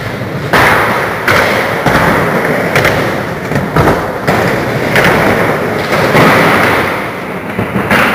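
Skateboard wheels rolling on skatepark ramps, a loud rough rumble that swells and fades, broken by several sharp thuds of boards hitting the ramps and floor.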